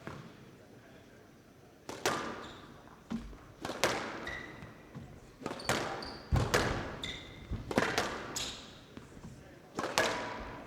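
Squash rally: the ball struck by rackets and smacking off the court walls about once a second, with short high squeaks of players' shoes on the court floor between the hits.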